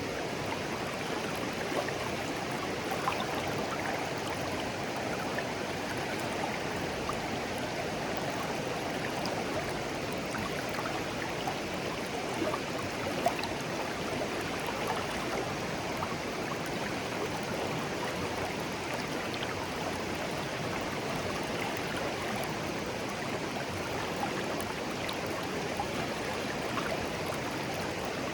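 Shallow stream of clear water flowing steadily over stones, an even babbling with small bubbling splashes scattered through it.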